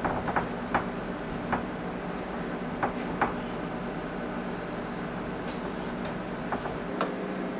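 Hands pressing and handling a sheet of pastry dough in a ceramic baking dish, with scattered light knocks of fingers against the dish, over a steady low background hum.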